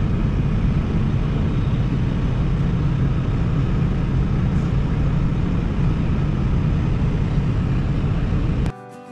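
Diesel engine of heavy harvest machinery running steadily, a loud low drone. It cuts off abruptly near the end, where acoustic guitar music begins.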